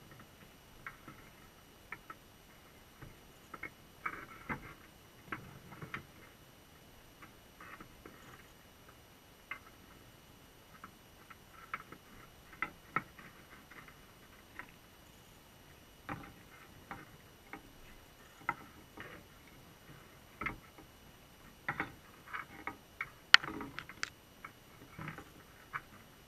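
Dungeness crabs' shells and claws clicking and tapping against the GoPro's underwater housing and the trap's wire mesh, heard through the housing as scattered, irregular ticks. One click near the end is much sharper and louder than the rest.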